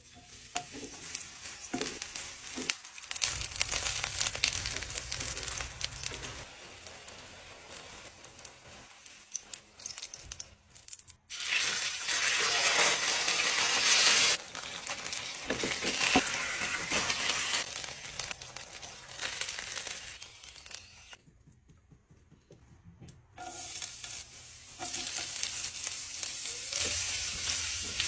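Food frying in hot oil in a nonstick pan: eggplant slices, then thick tuna steaks, then sliced shallots and ginger, each sizzling in its own stretch that starts and stops abruptly. The tuna steaks frying are the loudest, in the middle.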